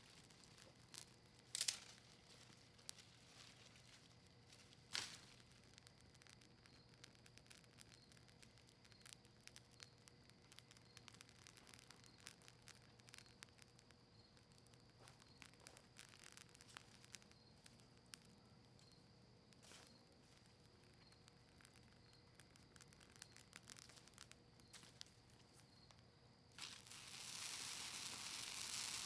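Faint campfire of cedar leaves and maple wood crackling with scattered small pops, two louder snaps in the first five seconds. Near the end a steady hiss sets in.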